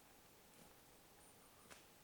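Near silence: faint ambient hiss with a soft click about a second and a half in.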